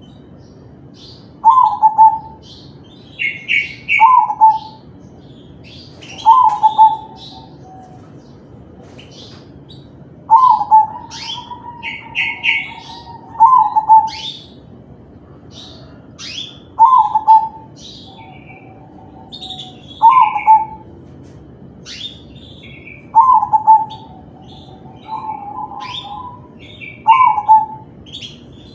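Crossbred zebra dove (perkutut crossing) singing: a string of short, loud coos repeated every two to three seconds, a few of them drawn out longer, with other small birds chirping faintly in the background.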